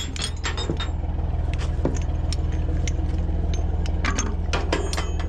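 Heavy diesel engine idling steadily, with scattered light metallic clinks and rattles that come thickest about four to five seconds in.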